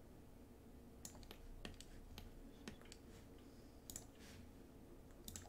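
Faint, irregular clicking of a computer mouse, some clicks coming in quick pairs, over a low steady room hum.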